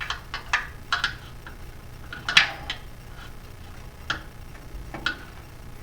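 Irregular sharp metallic clicks and clinks of hand tools being handled against metal, about nine in all, the loudest a little over two seconds in.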